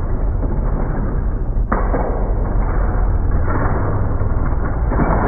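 LEGO train running along its plastic track, played back in slow motion: a steady deep rumble with one sharp click about a third of the way in.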